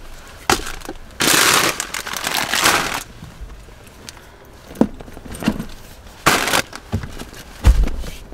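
Plastic shopping bags rustling and crinkling as groceries are unpacked into a car boot, with several dull knocks of items being set down. The loudest sound is a heavy thump near the end.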